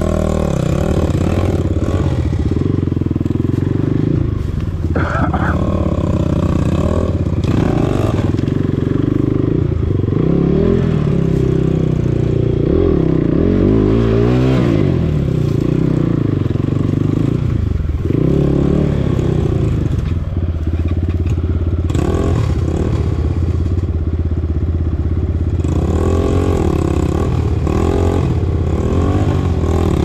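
Enduro dirt bike engine running close by, its revs rising and falling again and again as the bike crawls over fallen logs in low gear.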